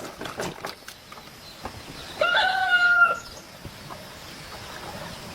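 A rooster crowing once, a single held call of about a second that starts a little over two seconds in.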